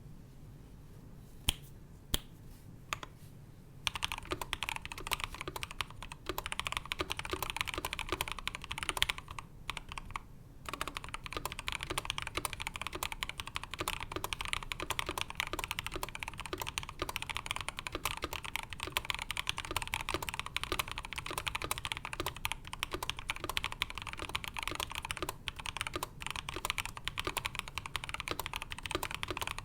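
Typing on a Next Time 75 mechanical keyboard in stock form: Tecsee Ice Candies switches (lubed and filmed) under PBT keycaps, on an aluminium plate with felt plate foam. A few single keystrokes come first, then fast continuous typing from about four seconds in, with a brief pause near ten seconds.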